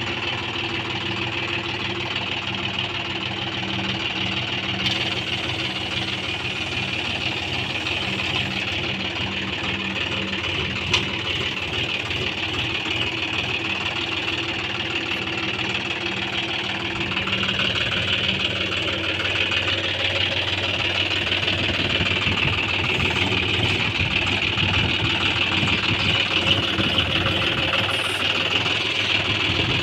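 John Deere 5050D tractor's three-cylinder diesel engine running steadily while it carries a loader bucket on chains. It grows louder a little past halfway through.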